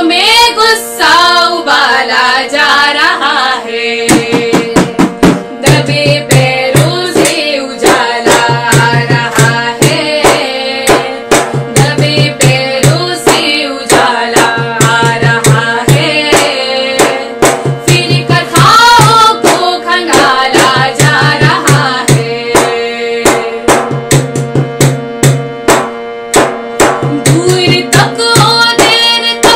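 Women singing a protest song, accompanied by a hand-struck frame drum beating a fast, steady rhythm.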